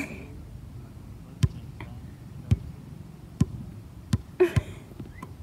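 A handful of sharp clicks or knocks, five in all, roughly one a second, with a brief scuffing sound just before the last one.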